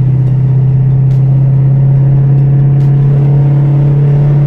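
Lexus 3UZ-FE V8 with a straight-piped exhaust, swapped into a Mercedes C230 coupe, heard from inside the cabin while the car drives along: a loud, steady low exhaust drone.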